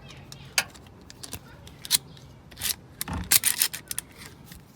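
Irregular clicks and scraping rubs, as of objects being handled and rubbed together, busiest about three seconds in.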